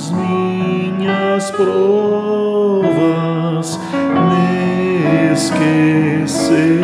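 A Congregação Cristã no Brasil hymn sung with instrumental accompaniment, moving slowly through long held notes.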